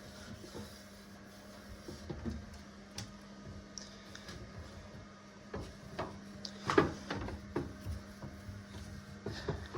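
Scattered light knocks and clatters of toilet-cleaning handling, with the loudest cluster about seven seconds in, over a steady low hum.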